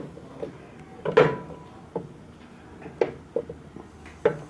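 Apple grinder's toothed drum in its cast-iron hopper giving a few scattered knocks and clunks, the loudest about a second in.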